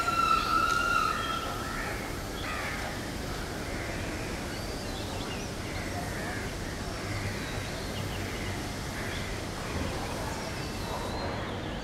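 Crows cawing and other birds calling in short scattered calls over steady outdoor background noise. It opens with a loud, steady high-pitched tone lasting about a second and a half.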